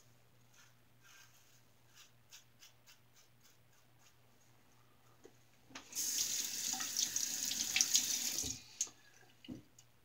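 Bathroom tap running into the sink for about two and a half seconds, starting about six seconds in. Before it come faint scratchy strokes of an injector safety razor on lathered stubble, and after it a light knock.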